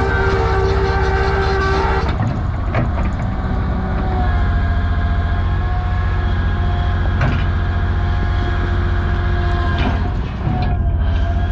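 2008 Komatsu PC750-7 hydraulic excavator running: a steady diesel drone with whining hydraulic pumps whose pitch shifts a couple of times as the machine works, and a few sharp metallic clanks.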